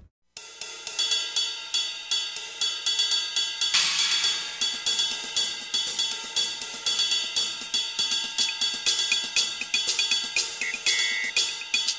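Background music with a busy drum-kit beat, hi-hats and cymbals to the fore, starting just after a brief silence. A cymbal swell comes about four seconds in.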